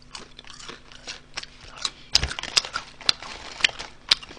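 Crisp crunching of Honey Butter Chip potato chips being bitten and chewed: irregular sharp cracks, a few a second, growing louder and closer together from about two seconds in.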